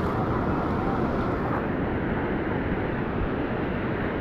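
Steady rush of ocean surf breaking and washing around a wader, with a low wind rumble on the microphone.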